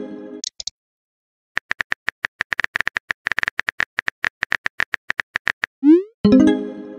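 Chat-app sound effects: the tail of a short chime, then a quick run of keyboard tap clicks for about four seconds as a message is typed, then near the end a rising swoop followed by another short chime.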